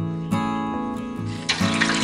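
Background music, joined about three-quarters of the way through by a sudden hissing sizzle as a piece of swordfish goes into hot oil in a wok.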